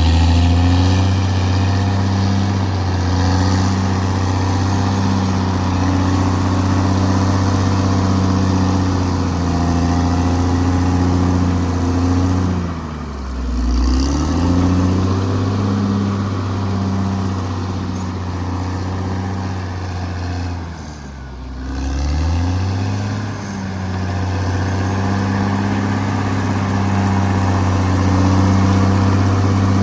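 Caterpillar D6R XL bulldozer's diesel engine running steadily at working revs. Twice, about a third and two thirds of the way through, the engine note sags and drops in pitch for a second or so, then climbs back.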